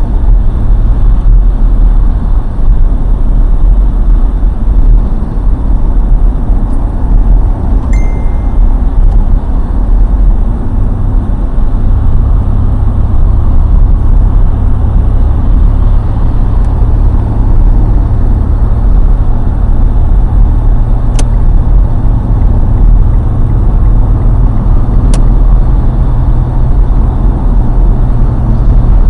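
Loud, steady low rumble of road traffic on a highway.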